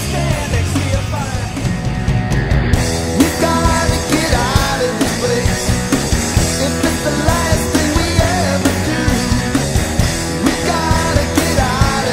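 Classic rock power trio playing a rock song with electric guitar, bass and drums, on a steady driving beat.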